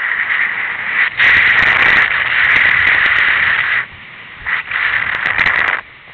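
Loud rushing noise of breaking surf and wind on the camera's microphone. It falls away sharply about four seconds in, surges back briefly, then drops again near the end.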